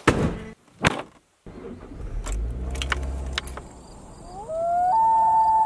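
Logo-intro sound effects: a few sharp whooshing hits, then a low rumble with scattered clicks, then a rising tone that settles into one long, steady, high note.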